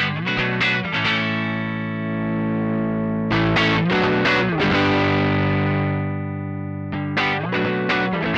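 Electric guitar (Suhr Classic S) played through a Joyo American Sound amp-simulator pedal with an overdriven tone. It plays three bursts of quick strummed chords, one at the start, one about three seconds in and one near the end, each left to ring out.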